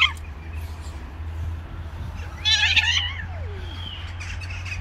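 Cat yowling once, loud and wavering, about two and a half seconds in, the call then sliding down into a lower falling moan. It comes as a pair of cats break off a mating, the female refusing the male.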